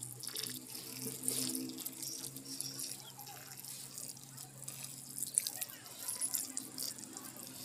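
Water trickling and splashing as a miniature field is irrigated, over a steady low hum.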